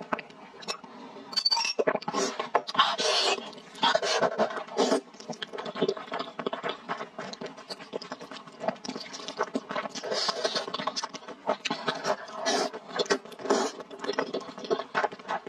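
Close-miked slurping and wet chewing of thick spicy rice noodles: a dense run of irregular slurps, smacks and lip clicks.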